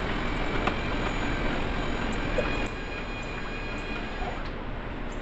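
Cordless drill running a long mixing paddle through a 5-gallon bucket of liquid soft-bait plastic, a steady motor whine with churning, stirring the settled hardener back in. It gets quieter about halfway through.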